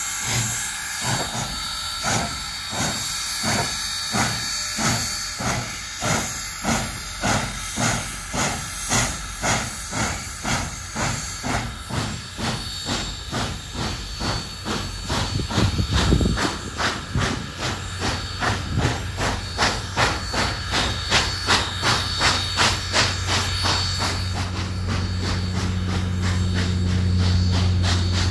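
Union Pacific Big Boy No. 4014, a 4-8-8-4 articulated steam locomotive, passing close by under steam with no diesel helper: a steady beat of exhaust chuffs over hissing steam, the beats coming faster as it picks up speed. Near the end the chuffs fade into a steady low hum as the train's cars roll past.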